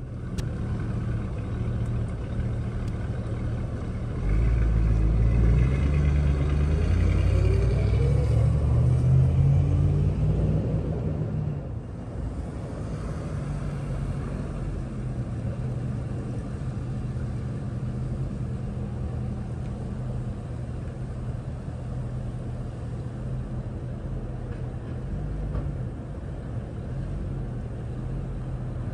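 1974 GMC Vandura van's engine running. It grows louder with rising pitch about four seconds in, eases off at about twelve seconds, then settles into a steady lower running sound as the van pulls up.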